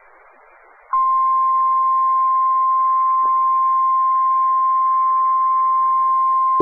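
NOAA Weather Radio 1050 Hz warning alarm tone: a loud, steady single tone that comes on about a second in and holds unbroken, signalling an urgent alert about to be read. Before it there is only faint radio-stream hiss.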